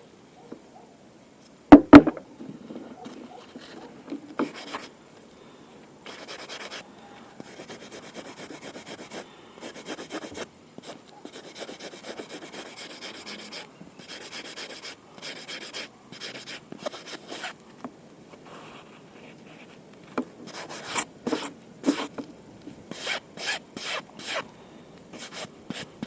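Irregular rubbing and scraping strokes on a workpiece, with two sharp knocks about two seconds in and a quicker run of strokes near the end.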